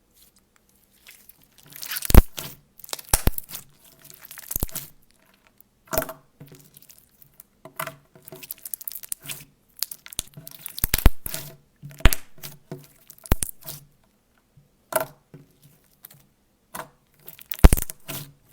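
Slime being pressed and stretched by hand, making irregular bursts of crackling and sharp pops, the loudest about two seconds in, around the middle and near the end.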